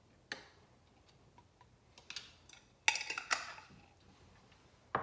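A metal spoon clinking against a small glass jar and small jars being handled on a tiled counter: a few short clicks and taps, with the loudest cluster of knocks and rattles about three seconds in.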